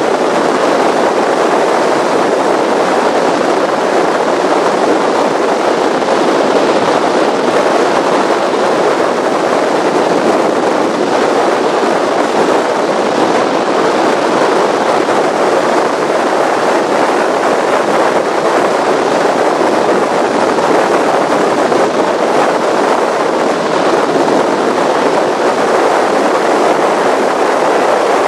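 Performance powerboat running at speed: a steady, loud rush of wind and water noise over a bow-mounted camera, with no change in pace throughout.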